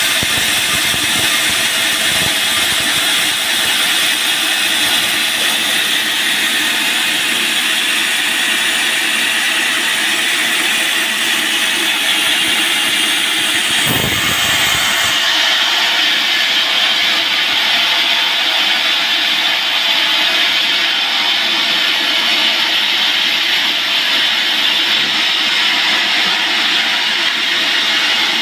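Band sawmill running steadily, its blade sawing a large teak log with a continuous hiss and whine. About halfway through, the sound abruptly turns duller.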